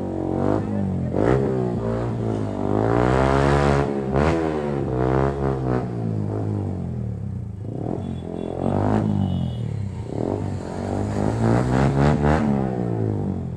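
Motorcycles with loud aftermarket exhausts, the nearest a Yamaha R15M with a full exhaust, revving up and down several times while riding. The engine pitch rises and falls again and again, easing off briefly about eight seconds in.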